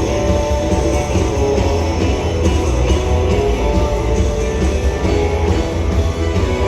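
Rock music played by a band with guitar, loud and continuous, with a strong bass.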